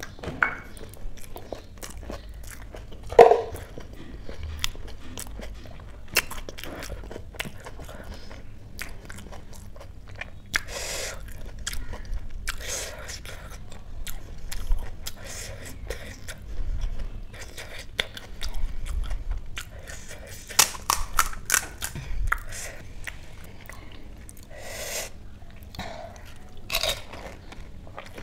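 A person biting into and chewing crisp panipuri shells: a run of sharp crunches with chewing in between, the loudest bite about three seconds in.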